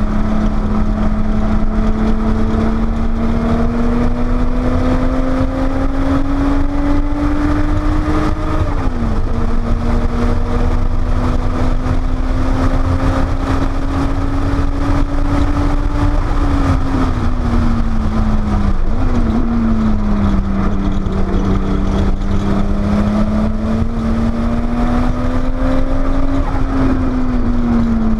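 Porsche 930 Turbo's turbocharged air-cooled flat-six engine pulling hard around a track, with steady road and wind rumble beneath. The revs climb slowly and drop suddenly about nine seconds in, then climb again. They fall away in the middle with a short rev blip, then rise again and drop off near the end.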